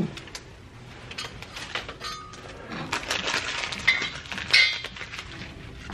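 Gift wrapping and bags crinkling and rustling as presents are handled, with many sharp clicks. The noise is busiest and loudest from about the middle of the stretch.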